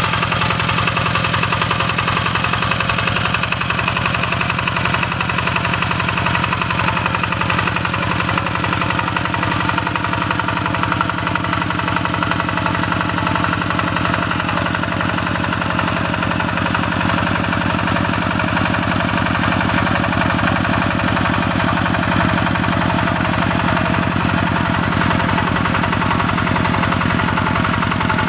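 Single-cylinder diesel engine of a walk-behind tractor running steadily under load as it pulls a wheat seed drill, with an even, rapid knocking beat.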